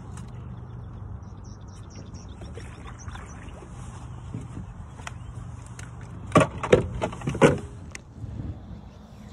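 A small motor's steady low hum throughout. About six seconds in comes a quick run of four or five loud sharp knocks and clicks, like gear being handled against the boat.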